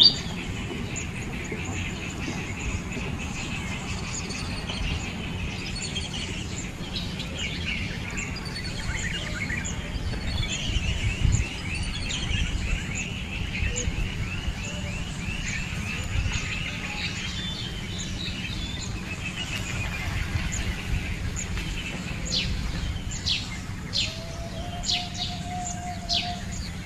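Birds chirping and trilling over a steady low outdoor rumble, with a run of quick repeated trills through the middle and short sharp chirps near the end.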